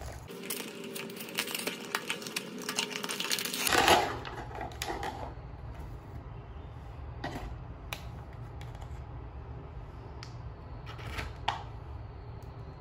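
Blind-box packaging being handled: the cardboard box and its foil bag crinkle and rustle in a dense crackle for about three and a half seconds, with a louder crinkle about four seconds in. After that come a few scattered light ticks and rustles.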